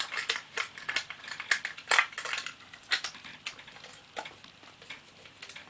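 Irregular sharp clicks and light clatter from a Paxette 35mm rangefinder camera being handled as its back is closed up after loading a film. The clicks are most frequent in the first three seconds or so and thin out after that.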